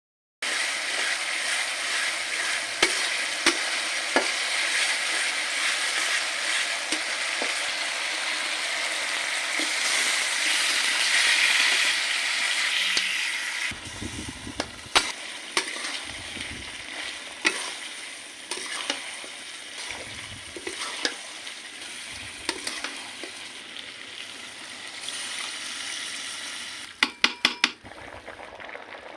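Chicken sizzling as it fries in a pan, stirred with a spatula that clicks and scrapes against the metal. The sizzle is loud for the first half and then quieter, and a quick run of sharp taps comes near the end.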